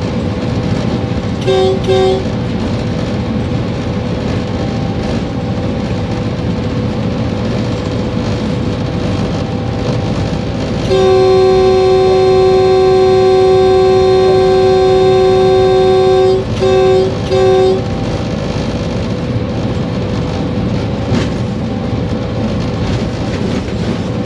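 Diesel locomotive horn heard from inside a running locomotive cab: two short toots, then a long steady blast of about five seconds, then two more short toots, over the steady running noise of the locomotive at speed.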